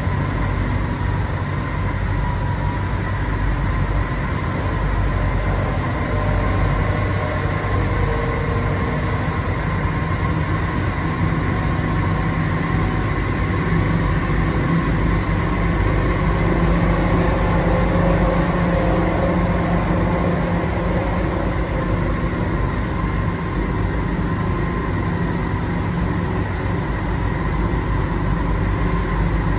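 Cabin noise of an MTR C-train metro car on the move: a steady rumble of wheels on rail with a faint, steady high tone over it, swelling slightly partway through.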